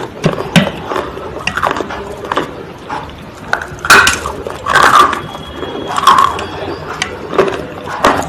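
Close-miked crunching, as of something brittle being bitten and chewed: irregular sharp cracks and crackles, with a few louder crunches about halfway through.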